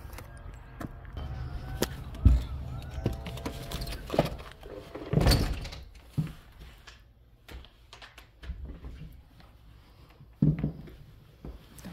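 Footsteps and a house's front door being opened and shut, with a few dull thumps: a sharp one about two seconds in and a longer one about five seconds in. After that come quieter footfalls and light knocks in a room.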